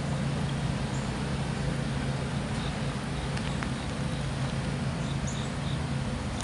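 Distant diesel locomotive engine running with a steady low drone as the CSX train approaches, with faint bird chirps over it.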